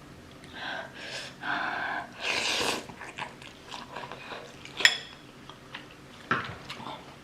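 Eating noises from someone working through a bowl of noodles: a noisy sniff about two seconds in, small wet clicks and slurps, and one sharp ringing clink of a utensil against the bowl about five seconds in.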